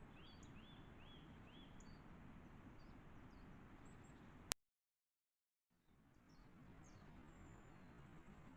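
Faint outdoor ambience with a steady hiss and small birds chirping in the distance, a quick run of four chirps in the first second and scattered calls later. About halfway a sharp click is followed by a second of dead silence, a cut between trail-camera recordings.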